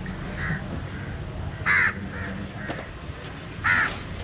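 Crow cawing: two loud caws about two seconds apart, with fainter caws in between.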